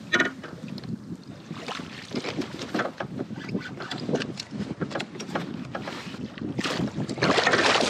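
Water splashing and lapping against a kayak as a hooked fish is brought alongside and scooped into a landing net, with many short knocks and splashes. The splashing grows louder and denser near the end as the net goes into the water around the fish.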